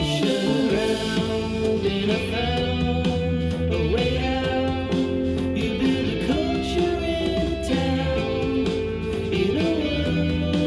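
A rock song with singing and guitar, played back through a pair of JBL LSR305 studio monitors on desktop stands and picked up by a microphone in the room.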